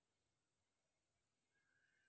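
Near silence: a faint steady high-pitched hiss, with one faint bird call near the end.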